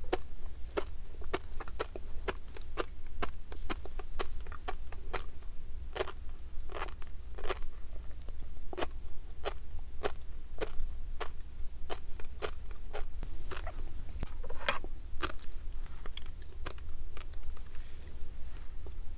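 Close-miked chewing of tobiko flying fish roe: a rapid, irregular run of crisp pops and crunches as the little eggs burst between the teeth.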